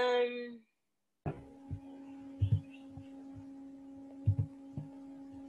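A steady held tone fades out about half a second in. After a short silence, a steady hum sets in, with a handful of soft low thumps at irregular intervals.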